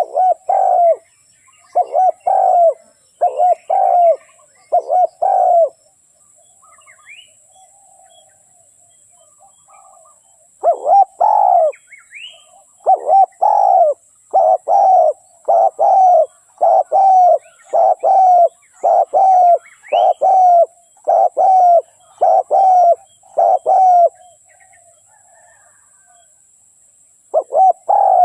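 A dove cooing in runs of short, evenly spaced coos: about six in the opening seconds, then a pause, then a longer run of about fifteen, with one more coo near the end. Faint chirps from small birds fill the gaps.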